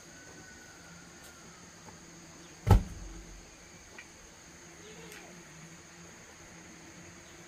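A log dropped from the shoulder onto the ground, landing with one heavy thud just under three seconds in, over a steady high drone of insects.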